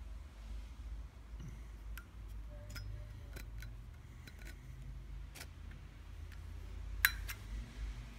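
Small sharp metallic clicks and taps of Zippo lighter cases being handled, about a dozen scattered through, with the loudest a quick double click about seven seconds in.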